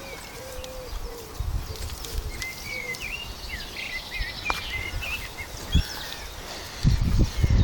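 Birds chirping and singing in short rising and falling calls over a low buffeting rumble on the microphone, with a few loud low thumps near the end.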